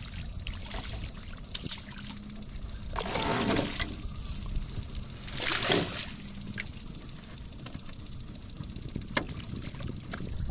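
Water splashing as a hooked sea trout thrashes at the surface and a landing net is swept into the water, in two loud surges about three and five and a half seconds in, over a low steady rumble.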